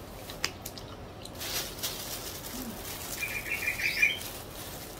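Plastic bag rustling as it is handled, with a small bird calling a quick run of chirps about three seconds in, ending on a rising note.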